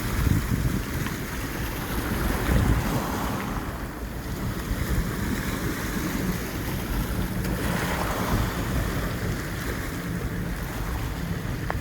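Sea waves washing onto the shore in slow swells, one rising and falling about two-thirds of the way through, with wind buffeting the microphone as a steady low rumble.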